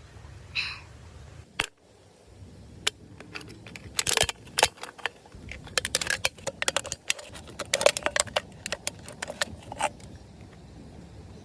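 Irregular sharp clicks and light clattering of small hard objects being handled, coming in clusters, with a brief squeak just under a second in.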